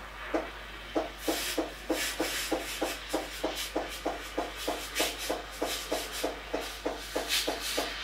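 Steam wand of a Krups XP 3440 espresso machine frothing milk in a stainless steel pitcher. The steam comes in rapid regular spurts, about four a second, and a hiss from the milk joins in about a second in.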